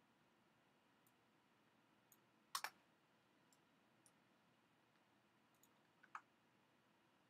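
Near silence broken by a few computer mouse clicks: a quick double click about two and a half seconds in, a single click around six seconds in, and a few faint ticks between.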